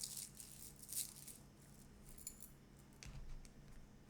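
Faint scattered light clicks and rustles of small objects being handled, over a low steady hum.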